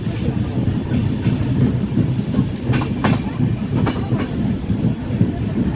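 Passenger train coach running at speed, heard from its open doorway: a steady low rumble of wheels on rails. A few sharper clacks come through near the middle as the wheels cross rail joints.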